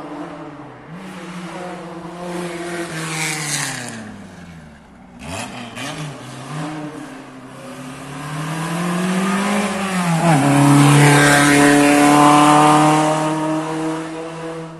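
Race car engine revving hard up through the gears, its pitch dropping as it backs off and slows for a bend, then accelerating again. It is loudest as it passes close, a little after ten seconds in, and fades near the end.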